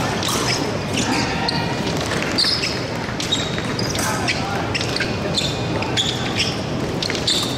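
Fencers' footwork on the piste: a run of short shoe squeaks and thuds in a large hall, with voices in the background.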